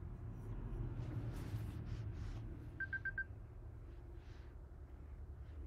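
Faint room tone with a low steady hum, and a quick run of four short electronic beeps at one pitch about three seconds in.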